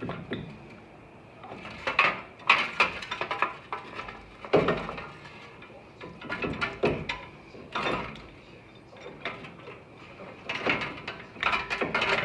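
Metal clunks and clinks in several bursts as a new front wheel hub is worked onto the splined axle shaft and seated against the steering knuckle.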